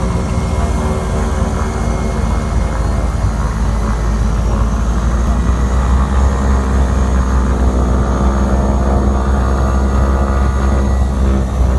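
Propeller plane's piston engines running at takeoff power, a loud steady drone heard from inside the cabin, growing slightly louder about halfway through as the plane takes off.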